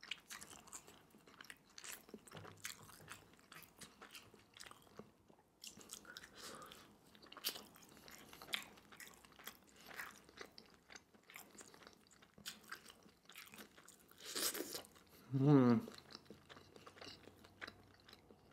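Close-miked chewing and biting of pan-fried rice rolls (cheung fun): soft, wet mouth clicks and smacks one after another. About fourteen seconds in, a short loud breath is followed by a brief hummed 'mm'.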